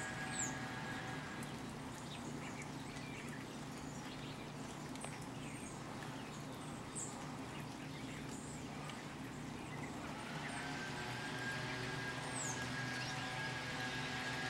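Outdoor background hum with a steady high whine that stops after a second or so and comes back after about ten seconds, and a few short, high bird chirps.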